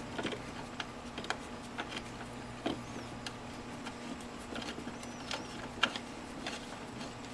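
Scattered light clicks and scrapes of a screwdriver turning the clamp screw of an insulated splice block to tighten a wire into it, over a steady low hum.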